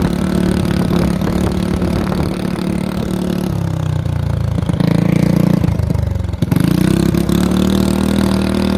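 Mini bike's small engine running, its pitch falling a few seconds in as it slows, then climbing back up about three seconds later as it is revved again and held steady.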